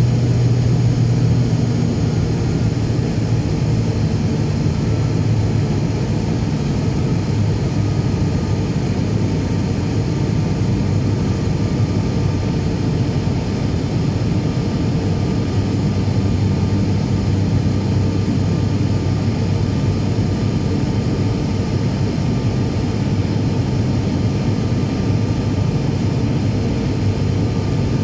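Steady drone of an ATR 72-500's Pratt & Whitney PW127 turboprop engines and six-bladed propellers, heard from inside the passenger cabin during the climb. It is an even, low hum with a faint higher tone and no changes.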